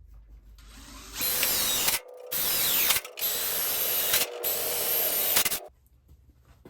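Power drill running in four bursts of about a second each, its pitch rising and falling, drilling bolt holes through sheet metal.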